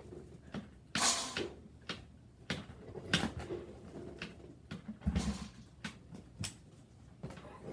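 Old dirt bike being kicked over about three times, a couple of seconds apart, with knocks and clicks in between; the engine does not catch.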